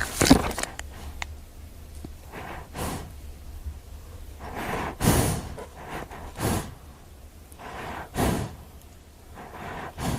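An animal making a series of short, breathy puffs of air, one every second or two, without a clear pitch. The loudest comes about five seconds in.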